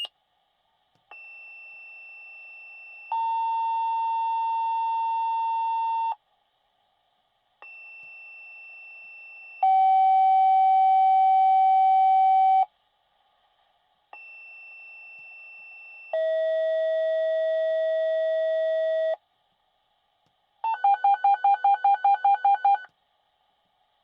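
Fire department dispatch radio paging tones, which set off the volunteers' pagers. There are three two-tone sequences: in each, a quieter high tone held about two seconds steps down to a louder low tone held about three seconds, and each pair's low tone sits lower than the one before. Near the end comes a fast run of about ten beeps.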